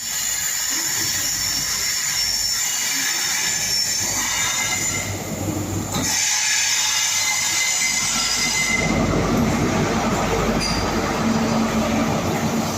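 Train pulling into a station: steady high-pitched squealing from the wheels and brakes through the first half, then a louder low rumble of the train running in from about nine seconds.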